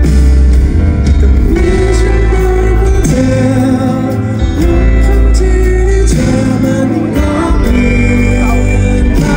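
Live pop band performance: a male singer's vocal melody over guitar and heavy bass.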